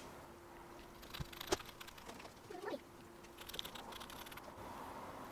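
Faint clicks and light rattling of printed nuts being threaded onto a 3D-printed stainless steel bolt, with a sharper click about a second and a half in.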